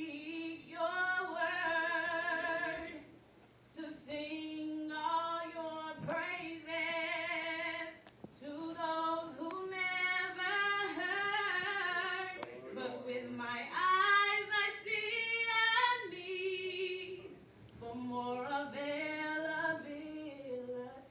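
A woman singing a gospel praise song solo and unaccompanied, in long held phrases with a wavering pitch and short pauses for breath between them.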